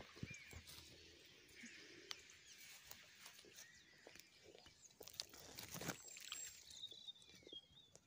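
Near silence outdoors: faint rustling of grass and reeds with a few soft clicks, and a few faint distant bird chirps, one wavering call near the end.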